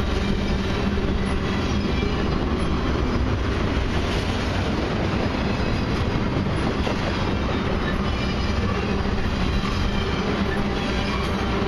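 Loaded crude oil tank cars rolling past on steel wheels: a steady rumble of wheels on rail, with a faint steady low hum underneath.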